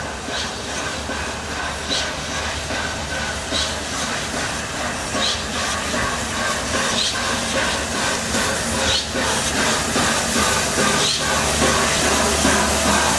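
Peppercorn A1 class 4-6-2 steam locomotive 60163 Tornado approaching slowly with its train, hissing steam over a steady rumble and growing louder as it nears. Short high clicks come about every second and a half to two seconds.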